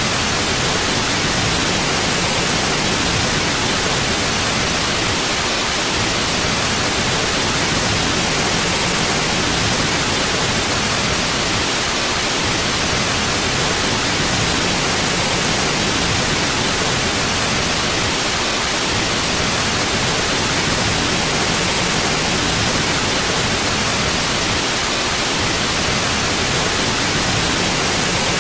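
Steady synthetic white noise: an even, unchanging hiss with no changes or events.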